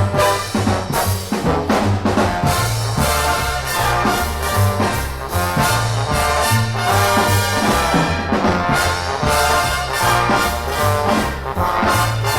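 Big-band jazz with trombones and trumpets over a walking bass and a steady swing beat.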